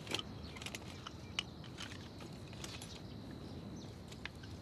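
Soldiers shifting in tall grass: scattered soft rustles and small clicks over a faint steady high tone.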